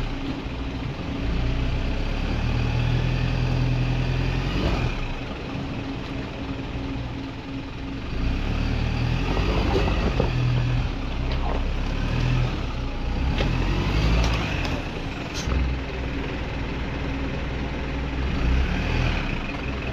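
Isuzu NPS 4x4 truck's turbo-diesel engine running under load at low speed as it crawls over a rocky creek-bed track, the engine note swelling and easing, with a few sharp knocks as the tyres and body work over the rocks.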